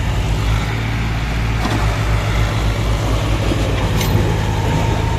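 John Deere 5039D tractor's three-cylinder diesel engine running hard as it hauls a sand-loaded trailer through shallow river water, with a steady low pulsing rumble and water splashing around the wheels.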